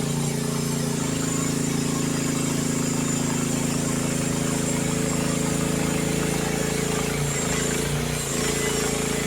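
Youtop YT15 mini excavator's engine running steadily, its pitch shifting about a second in and dipping briefly near the end.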